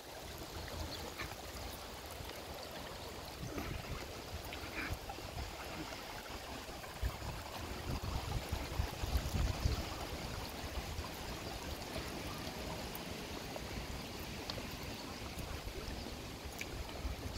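Shallow river water running steadily past stone stepping stones, with low rumbles from about seven to ten seconds in.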